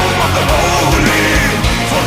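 Loud, aggressive rock or metal-style music with a steady beat.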